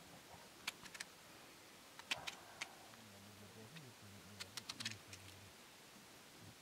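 Crisp, faint clicks of a khukuri knife slicing through a white radish held in the hand, coming in small clusters of quick cuts.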